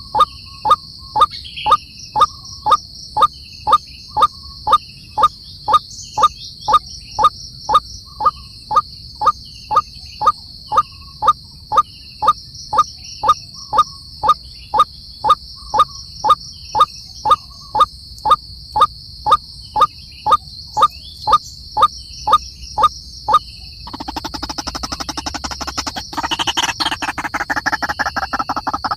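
A jungle animal call, a short 'tok' note repeated steadily about twice a second, over a constant high-pitched insect drone. About 24 seconds in, a faster, denser pulsing chorus takes over.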